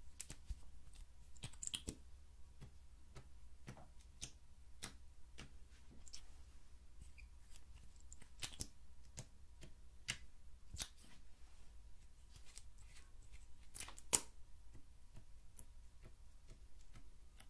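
Faint, scattered small plastic clicks and taps from liquid lip gloss tubes and their applicator wands being handled and uncapped, at irregular moments, with one sharper click about fourteen seconds in. A faint low hum lies underneath.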